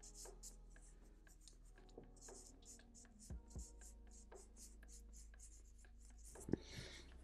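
Marker pen scratching on paper in many quick short strokes as a jagged zigzag line is inked, faint, with a few light taps, the sharpest near the end.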